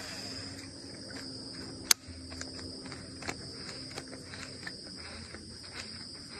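Insects chirring steadily at a high pitch, with one sharp click about two seconds in and a few faint ticks.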